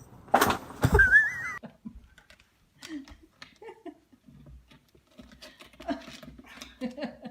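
A dog's vocal sounds: a loud sudden outburst, then a short high wavering whine about a second in, followed by scattered quieter short sounds.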